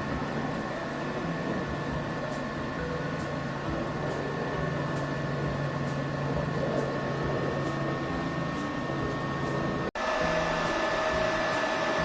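Steady machine drone with a few fixed tones running throughout. It drops out abruptly near the end and comes straight back at a slightly different pitch.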